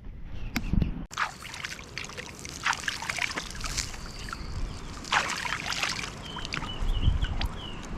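Hands being washed in water: irregular splashing and trickling, with a few louder splashes.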